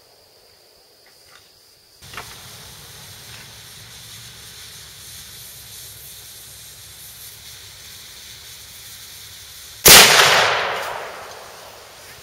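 A single sudden, very loud blast about ten seconds in, with a rolling echo that dies away over about two seconds, over a steady background hiss.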